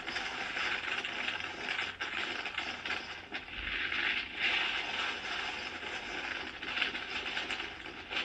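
Hurricane wind and rain blowing, a steady rushing noise that swells and eases every second or two.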